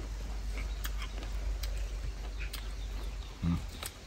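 Crisp star fruit being chewed: a few separate crunching clicks about a second apart, with a brief low voice sound shortly before the end.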